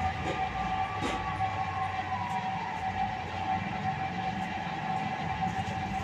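Electric potter's wheel motor running with a steady whine and low hum while the wheel spins at speed.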